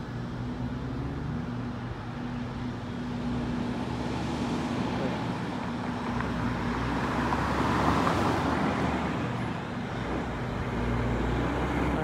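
Road traffic at an intersection: a car passes close by, swelling to its loudest about eight seconds in and fading away, over a steady low engine hum.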